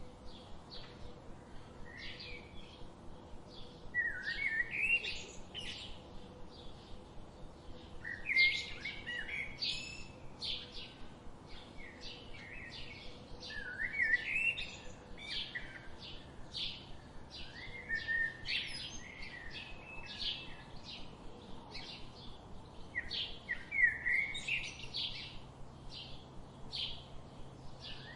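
Several birds chirping and singing: a constant run of short, high chirps, with a louder warbling phrase that swoops up and down in pitch every four to five seconds.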